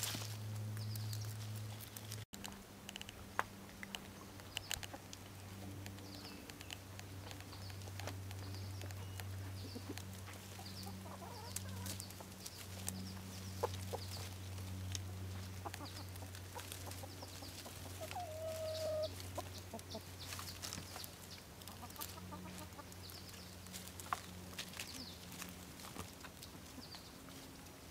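Hens clucking now and then among scattered clicks and rustles, over a steady low hum, with one short, clearer call about two-thirds of the way through.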